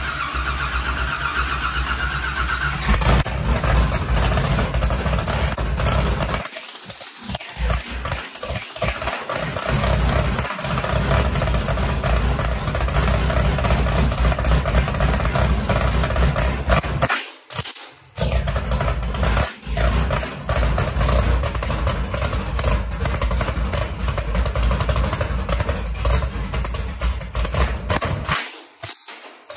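Nitrous drag car's 582 cubic-inch TRE big-block V8 on a cold start: the starter turns it over for about three seconds, then the engine fires and runs loud through open bullhorn exhaust. The level dips briefly several times.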